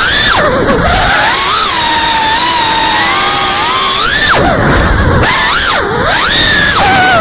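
FPV quadcopter's brushless motors and propellers whining, recorded on the drone itself, the pitch swooping up and down with the throttle as it banks around. The whine drops sharply three times, about half a second in, around four and a half seconds, and near six seconds, as the throttle is chopped and then climbs back.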